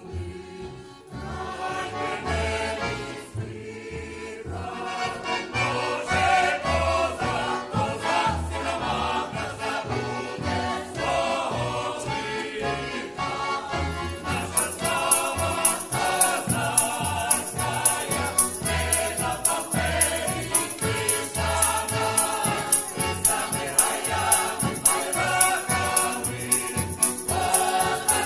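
Folk ensemble choir singing a song over a steady, rhythmic accompaniment. About halfway through, a bright jingling joins in time with the beat.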